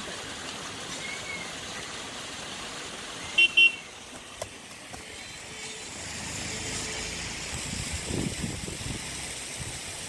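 Steady outdoor traffic noise with a vehicle horn tooting twice in quick succession about three and a half seconds in.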